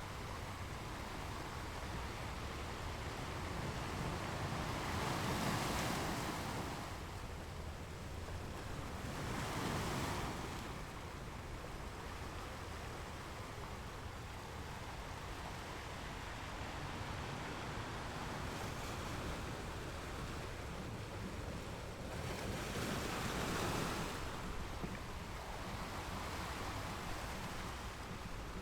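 Ocean waves breaking and washing up a beach, a steady rush of surf with three larger waves swelling and breaking: about five seconds in, about ten seconds in, and near the end.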